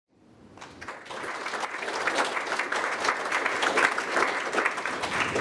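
Audience applauding, fading in over the first second.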